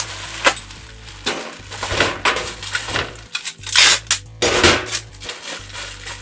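Bubble wrap rustling and crinkling as it is rolled around a game controller. About four seconds in, packing tape screeches off a handheld tape gun to seal the bundle.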